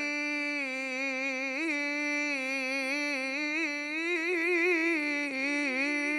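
Male qari reciting the Qur'an in melodic tilawah style, amplified through a microphone. He holds one long, drawn-out phrase without a breath, the pitch wavering in quick ornaments and rising and swelling a little past the middle.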